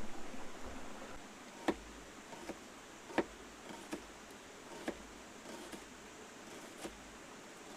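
A few sharp, irregular knocks or ticks, the two loudest about two and three seconds in and fainter ones between, over a faint steady hiss.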